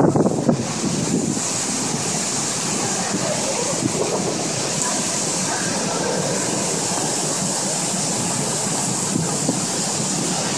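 Heavy storm rain pouring steadily, with wind gusts buffeting the microphone in the first half-second.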